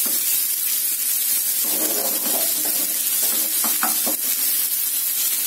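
Freshly added chopped onion sizzling as it fries in hot oil and ghee in a non-stick frying pan, stirred with a spatula, at the start of frying the onion until it browns.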